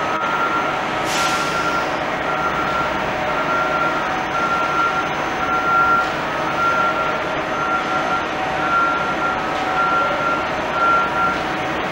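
A vehicle's reversing alarm beeping steadily, about one beep every three quarters of a second, over the rumble of a subway train on elevated track; the beeping stops shortly before the end. A short burst of hiss about a second in.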